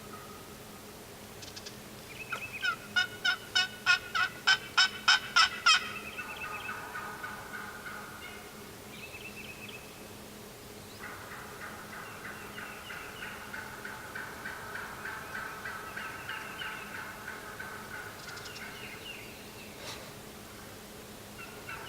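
Turkey calling: a run of about eleven loud, evenly spaced yelps between about two and six seconds in, then quieter rattling calls, and a long, fainter stretch of pulsing turkey calls and gobbling from about eleven to eighteen seconds in.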